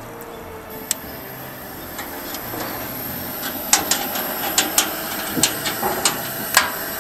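Camp cooking gear being handled over a steady high hiss: a sharp click about a second in, then a run of sharp metallic clinks and knocks through the second half.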